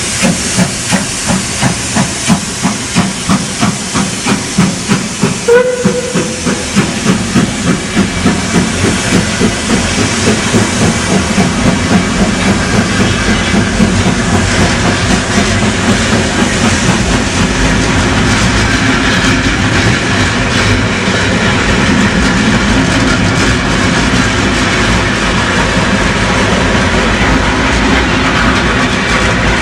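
Steam locomotive working hard with a train, its exhaust chuffs coming about two a second and quickening until, about halfway through, they blend into a steady rush of noise. A brief tone sounds about five seconds in.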